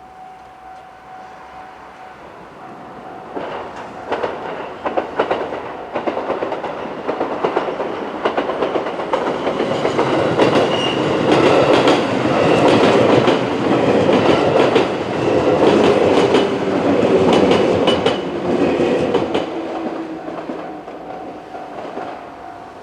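A six-car JR West 221 series electric train passing over a level crossing. Its wheels rumble louder as it comes in, with a fast clickety-clack of wheels over rail joints, loudest in the middle, then the sound fades near the end.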